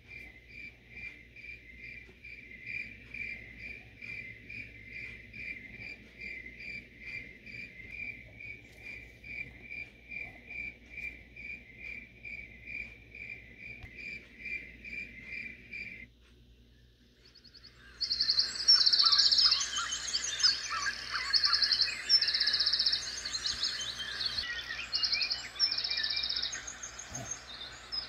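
A Letsfit sleep sound machine playing its recorded nature sounds through its small speaker. First comes a cricket track: an even train of high chirps, about two to three a second. It stops about 16 seconds in, and after a short pause a louder singing-birds track of dense chirping and twittering takes over.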